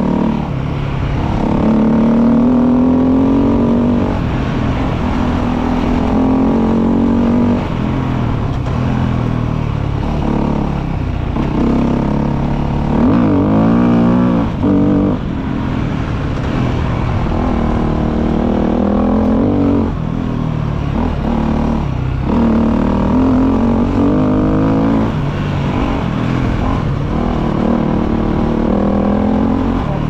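KTM motorcycle engine running under way, its revs rising and falling repeatedly as the throttle opens and closes, with a few short drops in level along the way.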